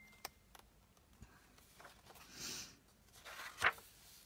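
Faint handling of paper on a work table: a few small taps and clicks, a soft rustle about two and a half seconds in, and a sharper click with a rustle near three and a half seconds.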